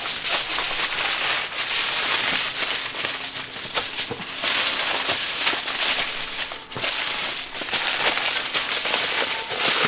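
Aluminium kitchen foil crinkling and crackling as two sheets are folded over and pressed tightly around racks of ribs by hand, a dense run of small crackles with brief lulls.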